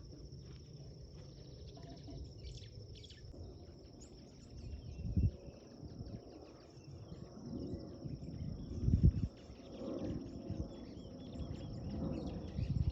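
A steady, high insect trill with scattered short bird chirps over it. A few low bumps on the microphone, loudest about five and nine seconds in.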